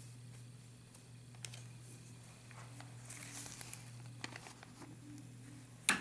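Quiet room tone with a steady low hum, faint paper rustling and small clicks from pen and paper handling, and one sharp click near the end as the pen is brought to the page.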